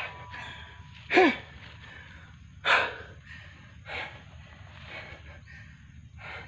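A man's short, sharp gasping cries of strain: a loud one about a second in that slides down in pitch, a harsher breathy one near three seconds, then fainter gasps and breaths.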